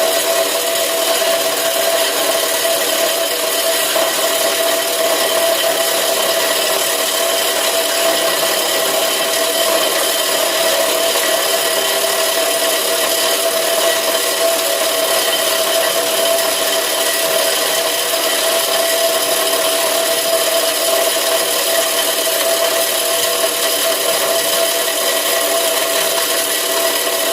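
PVC scrap grinder machine running steadily: a loud, even mechanical grinding noise with a steady hum, unchanged throughout.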